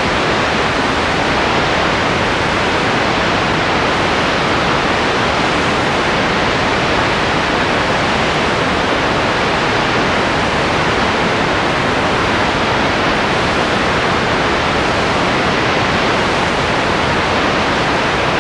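Loud, steady hiss of static with no other sound in it, the noise floor of a silent home-movie film transfer.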